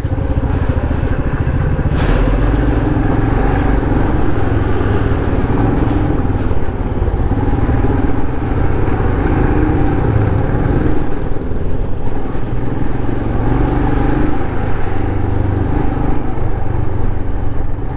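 Motorcycle engine running steadily while the bike rides, its note wavering a little with the throttle, over a haze of road and wind noise. There is a single short knock about two seconds in.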